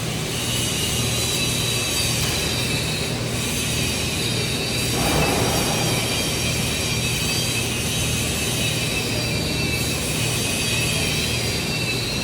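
TIG welding arc running steadily: a constant low buzz under high whining tones, with a brief rush of noise about five seconds in.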